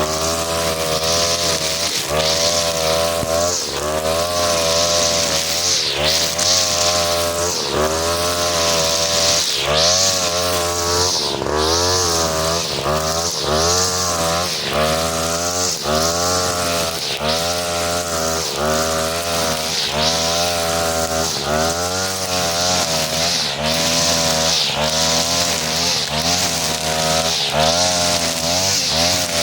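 43cc two-stroke brush cutter running at high revs with a four-strand 2.5 mm nylon trimmer line head. The engine note dips and recovers about once a second as the line sweeps through grass under load, with a hissing swish from the line.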